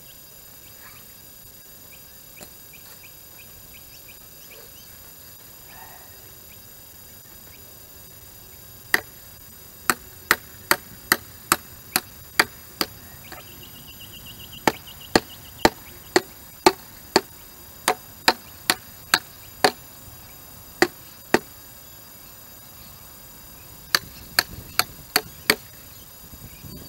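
Sharp hammer blows, about two a second in a run of roughly a dozen, then a pause and four quick strikes near the end.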